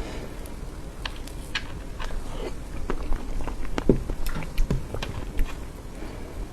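Close-miked chewing of soft cream cake: irregular wet mouth clicks and smacks, with a few louder ones about halfway through.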